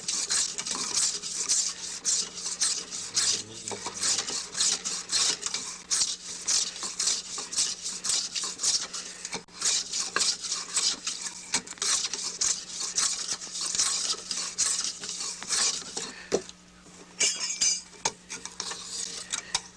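A steel chisel blade shaving a split bamboo rod strip in quick, repeated scraping strokes, with a brief pause near the end. It is roughing a top strand down towards size before the final planing.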